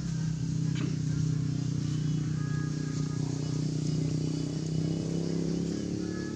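A steady low mechanical hum, like a motor running, holding the same pitch throughout, with a few faint short higher tones above it.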